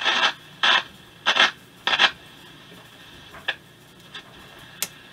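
Hallicrafters S-120 shortwave receiver being tuned across the band: four short bursts of station audio and static in the first two seconds as the dial passes signals, then a few fainter blips over a steady hiss from the speaker.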